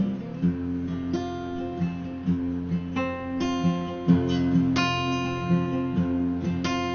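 Acoustic guitar strumming chords in a steady rhythm, an instrumental passage of the song with the chord changing a few times.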